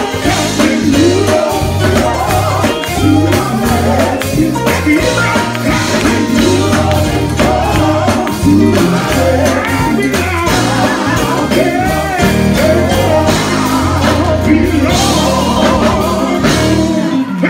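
Live gospel song: a lead singer and backing vocalists singing over a band with electric guitar and a steady bass line. The band stops just before the end.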